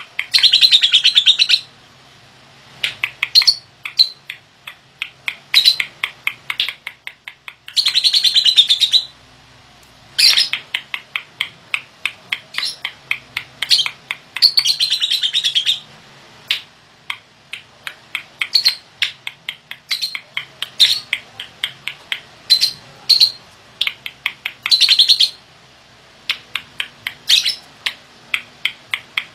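Pastel yellow lovebird singing: long runs of sharp, rapid chirps, broken four times by dense trilling bursts about a second long, in a rough voice.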